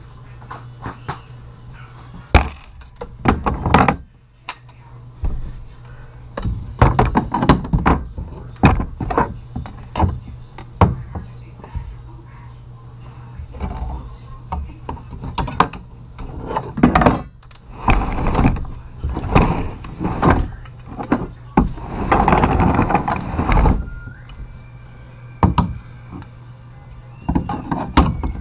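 Irregular knocks, clunks and rattles of metal hardware and tools being handled inside a plastic ice-fishing shanty sled, with a busier stretch of clatter about 22 seconds in. A steady low hum runs underneath.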